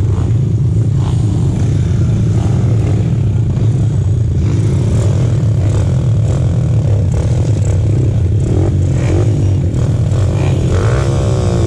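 Dirt-bike engines running at a motocross start line, with a steady low idle throughout. From about two-thirds of the way in, revs repeatedly rise and fall as the riders blip their throttles.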